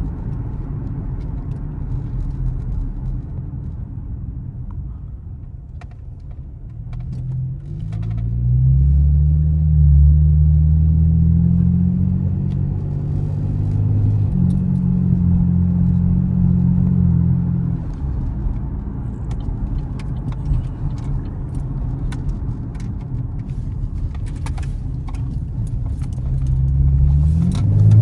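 Camaro's V8 engine and exhaust rumbling at low speed, rising in pitch as it accelerates about seven seconds in, holding a higher note for several seconds, then dropping back to a low drone before rising again near the end. Faint clicks and rattles sound over the drone in the second half.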